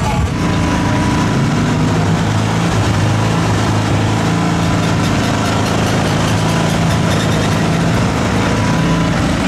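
Off-road vehicle engine running at a steady pitch.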